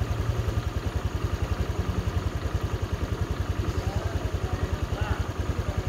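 Honda Vario 150 scooter's single-cylinder four-stroke engine idling with a steady, even, rapid pulse.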